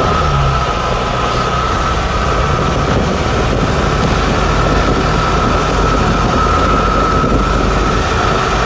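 A vehicle engine running steadily under load, a low drone with a constant high whine over it.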